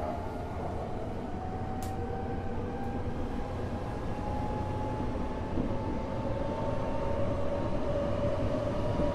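Tokyo Metro 05 series electric train heard from inside a car: a steady rumble of running with a motor-drive whine whose pitch slowly rises as the train picks up speed. A single sharp click about two seconds in.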